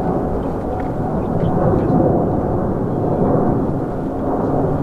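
Jet engines of a Boeing 777-300ER (GE90-115B) running loud: a steady low rumble with a faint whine held at one pitch, and a lower hum joining in after about three seconds.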